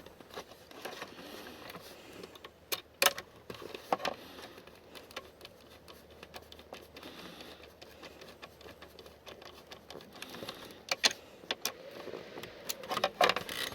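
Hand work on a car seat's plastic trim panel and its fastenings: rustling and handling noise with scattered sharp clicks and taps, a few louder ones near the start and near the end.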